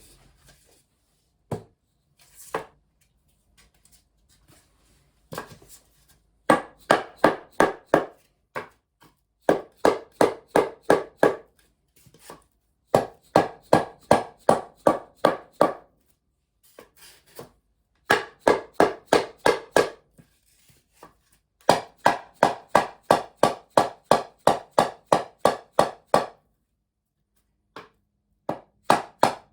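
Rapid knocking, about five blows a second in runs of about two seconds, as a 2x2 ft foam-backed compressed-wood sub-floor tile is tapped edge-on into the interlocking joint of its neighbour. A few single knocks fall between the runs.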